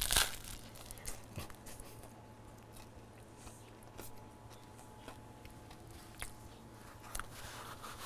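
A person biting into a crispy baked French-roll sub with a loud crunch at the start, then chewing with faint, scattered crunching.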